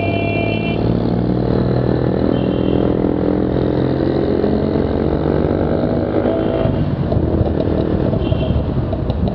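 Modified Maruti Suzuki Esteem's loud aftermarket exhaust with the engine running, its note climbing slowly. About seven seconds in the steady note breaks up into rough, uneven popping and crackling.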